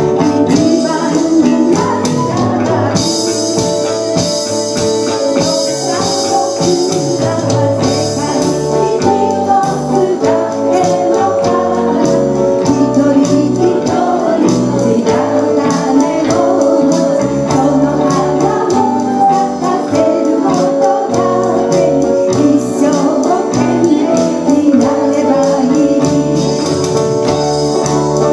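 Small live band playing a song with guitars, drum kit and keyboard while a woman sings the melody into a microphone. A bright percussion shimmer comes in about three seconds in and lasts several seconds.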